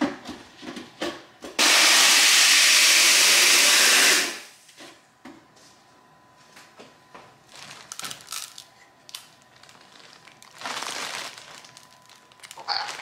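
Blender running for about two and a half seconds, blending a margarita with ice; it starts suddenly at full loudness and stops a little past the first second. Afterwards there are light knocks and clatter of the cup being handled.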